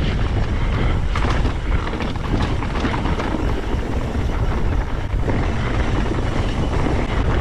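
Strong wind buffeting the microphone in a steady, heavy rumble, with a few faint clicks and rattles.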